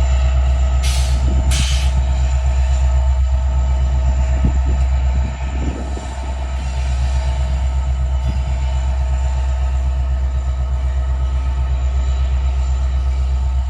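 Metra commuter train's diesel locomotive running steadily, a deep engine hum with steady whining tones over it; the level dips briefly about five seconds in.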